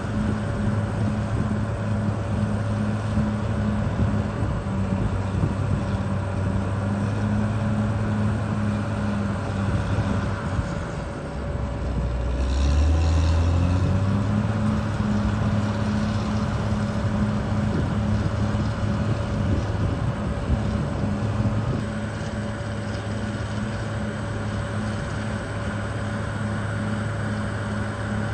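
Caterpillar D6R XL bulldozer's diesel engine running steadily with a constant high whine alongside. About halfway through the engine note drops for a moment and then climbs back.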